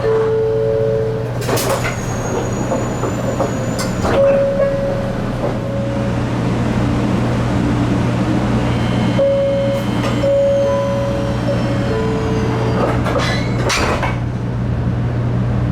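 500 series Shinkansen door chime repeating its alternating two-note tone while the sliding doors open and close, with sharp knocks as the doors move, loudest near the end. A steady hum from the standing train runs under it.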